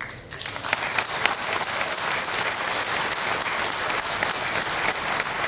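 Large crowd applauding: the clapping breaks out suddenly and goes on steadily, a dense patter of many hands.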